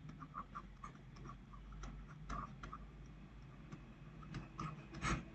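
A stylus tapping and scratching on a tablet screen during handwriting: a string of faint, irregular light ticks, a little louder near the end.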